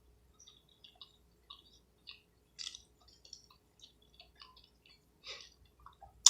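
Quiet, close-miked wet chewing of crab meat: a string of small moist clicks and lip smacks, a few of them louder, ending in one sharp click.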